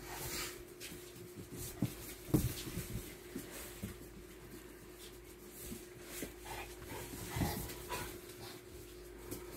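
American bulldog–pit bull puppies whimpering and squeaking as they play-wrestle over an adult dog, with a few thumps of bodies and paws on the floor. The loudest thump comes a little over two seconds in and another near the end.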